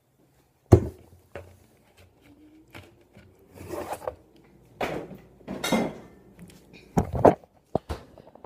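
Handling noises: a sharp knock about a second in, then scattered rustling and shuffling, and a quick run of clicks and taps near the end.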